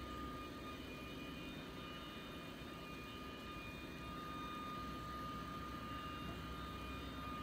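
Faint, steady low rumble with a thin constant high whine over it, like engine or machinery noise in the background.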